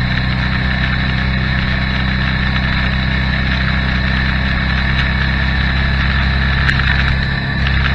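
Motorcycle engine running at a steady speed while riding, a constant low drone with wind and road noise, picked up by a camera mounted on the bike. It eases off briefly near the end.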